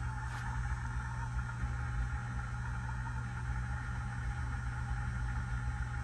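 Hunter low-profile ceiling fan running, its motor giving a steady low hum.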